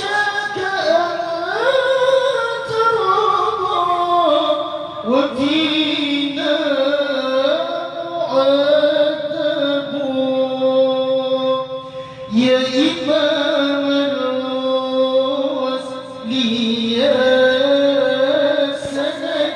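Sholawat sung by a single voice in long, ornamented phrases with slow sliding and held notes, new phrases beginning about five, twelve and seventeen seconds in.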